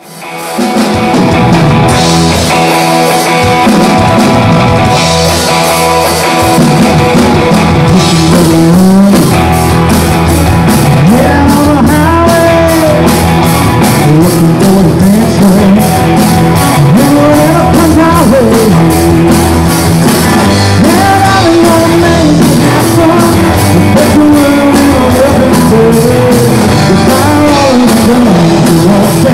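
Rock band playing: electric guitar, bass and drums, with a sung vocal coming in about nine seconds in.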